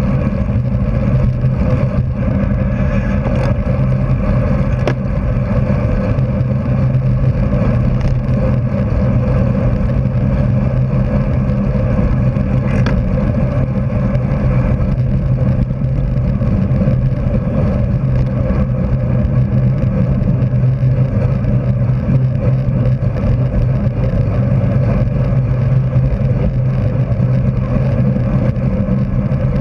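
Steady loud wind rush and tyre hum from a road bike riding at racing speed, with the wind hitting the bike-mounted camera's microphone; a few faint clicks come through.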